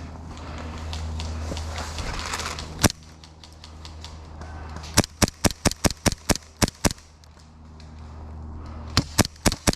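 Airsoft guns firing: one sharp shot about three seconds in, then two rapid strings of shots at about five a second, the first around five seconds in and the second near the end.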